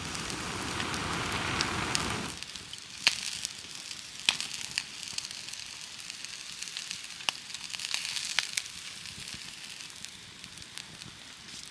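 Wood fire crackling, with irregular sharp pops. About the first two seconds also hold a dense rushing noise.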